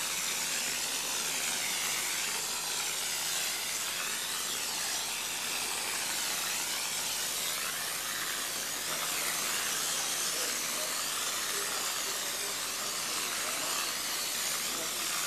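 RimSpray GFRC Mini spray gun spraying GFRC concrete premix, its air-atomised stream making a steady hiss.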